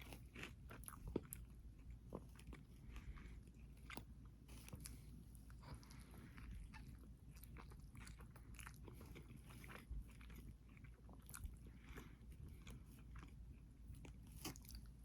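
Close-miked chewing and crunching of food: many small, quiet, crisp mouth clicks in an uneven stream, with a few louder crunches.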